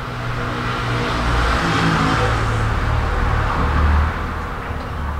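A car driving past, its engine drone and tyre noise swelling to a loud peak in the middle, then cutting off suddenly at the end.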